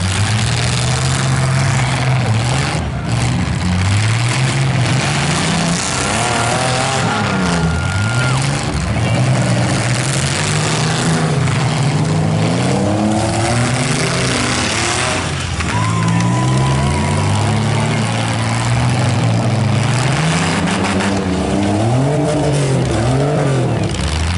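Engines of compact demolition derby cars revving hard and dropping back over and over, the engine pitch rising and falling every second or two as the cars accelerate and ram each other, over a constant rush of noise.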